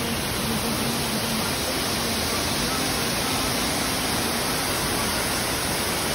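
Waterfall rushing steadily: a dense, even roar of falling water.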